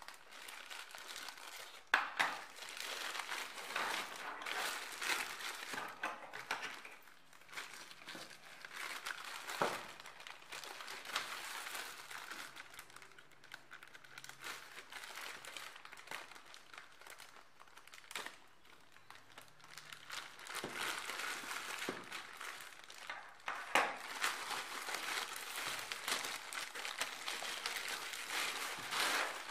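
Plastic courier mailer bag crinkling and rustling in the hands as it is cut open with small scissors and pulled apart, with a few sharp clicks among the rustle; the rustle eases off in the middle and picks up again near the end.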